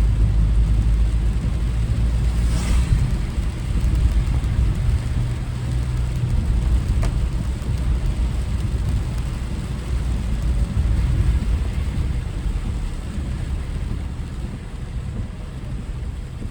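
Car driving in typhoon weather: a steady low road-and-wind rumble with a hiss of rain on the car. A brief louder hiss comes about two and a half seconds in.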